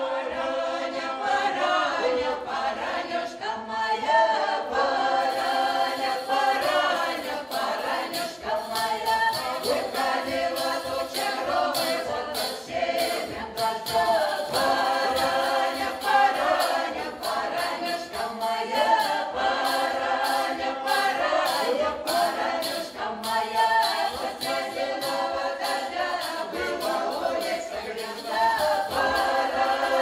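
A mixed choir of women's and men's voices singing a Russian folk song a cappella, in several voice parts at once.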